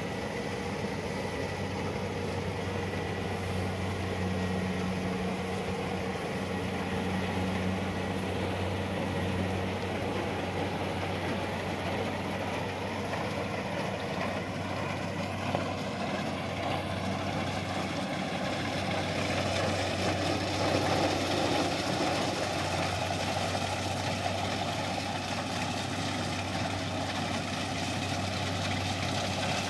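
Kubota DC-70 rice combine harvester's diesel engine running steadily under load as the machine cuts through standing rice, a steady low hum with mechanical clatter on top. The noise grows louder about two-thirds of the way in as the harvester comes closer.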